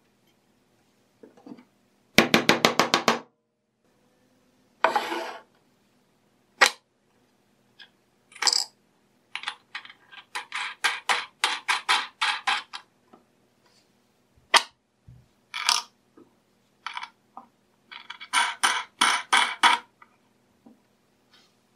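Steel bolts, washers and wing nuts clinking and clicking as they are handled and threaded by hand on a wooden jig. The sound comes as scattered single clicks and short runs of rapid clicks, with a dense run about two seconds in and longer runs near the middle and near the end.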